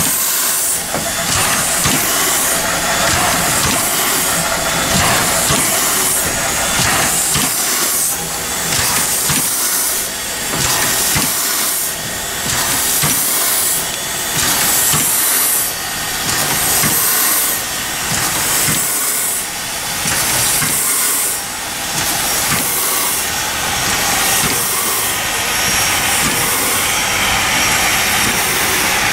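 Steam hissing from the standing Santa Fe steam locomotive No. 3415, loud and continuous, swelling and easing every couple of seconds.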